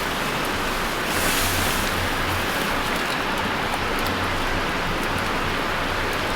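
Strong wind blowing steadily with a gust about a second in.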